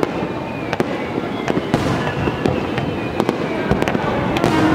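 Aerial fireworks display: a rapid string of shell bursts and crackling reports, overlapping bangs over a continuous rumble.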